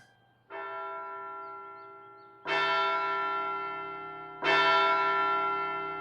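Large bell tolling, three strikes about two seconds apart, each ringing on and fading slowly, each louder than the last. It marks the hour as a sign that time is up.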